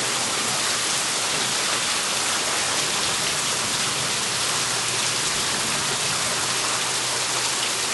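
Heavy rain from a summer monsoon thunderstorm pouring down steadily.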